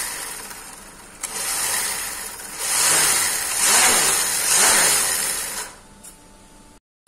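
WPL D12 RC truck's electric motor and drivetrain whirring as the rear wheels are spun up under throttle, rising and falling in pitch a few times, then stopping a little under six seconds in.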